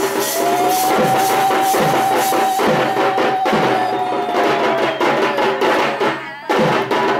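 Drum-led music with a steady beat, a long held note sounding over it for a few seconds; it drops away briefly near the end and comes back.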